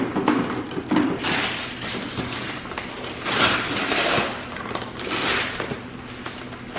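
Christmas wrapping paper being torn and crumpled off a gift box in several rustling rips, with a few light knocks of the box being handled.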